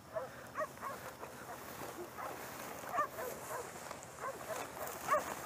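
Hunting bay dogs barking in a rapid, steady string of short barks, several a second: the dogs are baying quarry they have cornered.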